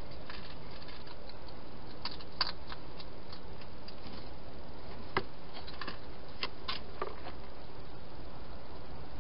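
A wild hedgehog eating from plastic bowls in a feeding station: scattered, irregular crunches and clicks of chewing and of its snout knocking the bowl, over a steady hiss.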